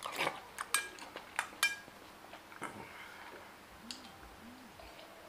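Metal spoon clinking against a small stainless-steel bowl: about four sharp, ringing clinks in the first two seconds, then softer, scattered eating sounds.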